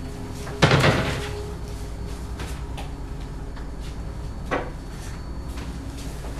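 Kitchen cupboard door knocking shut: a loud knock about half a second in and a smaller one at about four and a half seconds, over a steady low hum.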